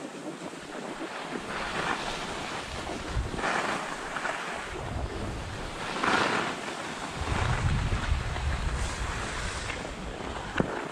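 Skis sliding and scraping over packed snow, swelling every second or two through the turns, with wind buffeting the microphone. A single sharp click near the end.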